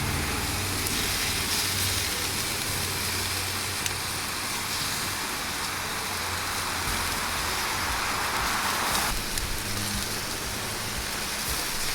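Fish sizzling on a hot grill as sauce is brushed over it, a steady crackling hiss that swells for a couple of seconds and drops off suddenly about nine seconds in, over a steady low hum.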